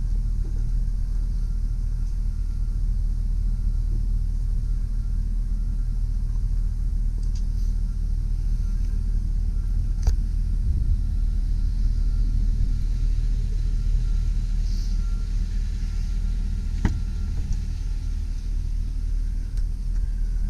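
The 2003 GMC Sierra 2500HD's 6.0-litre V8 idling steadily, a low even rumble. Two brief clicks, one midway and one later on.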